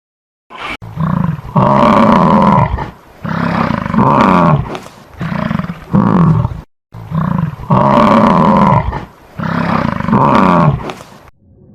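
A large animal giving a string of loud, deep calls, each about a second long and sliding down in pitch, with short pauses between them; the same run of calls seems to repeat about halfway through.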